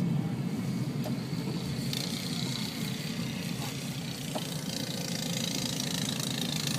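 Snowplow vehicle's engine running steadily. A hissing noise joins about two seconds in.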